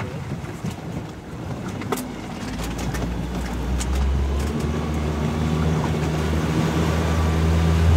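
Boat engine running with a low hum that comes in about two and a half seconds in and grows steadily louder, stepping up in pitch about halfway through.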